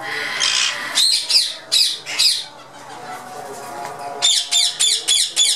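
Ringneck parakeets screeching: four harsh calls about a second in, then a quick run of about six calls near the end.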